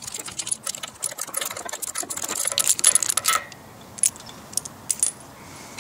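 Ratchet wrench clicking rapidly for about three and a half seconds as a bolt on the engine block is loosened, followed by a few separate metallic clicks.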